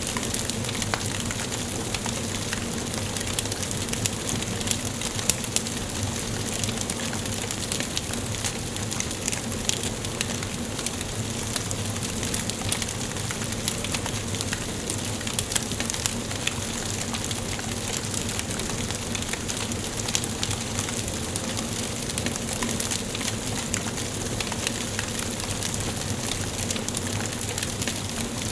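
Wood fire burning in a fireplace, crackling continuously with frequent small pops over a steady hiss.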